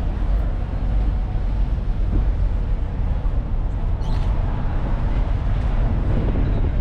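Passenger ferry under way: a steady, loud low rumble.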